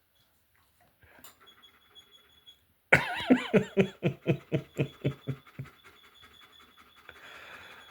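A dog's squeaky, creak-like breathing, which sounds like a creaking bed: a run of about a dozen short pitched squeaks, roughly four a second, fading out. It starts about three seconds in.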